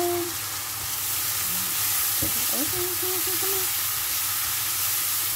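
Sliced mushrooms sizzling steadily as they stir-fry in a non-stick wok, with a silicone spatula stirring and scraping them around the pan.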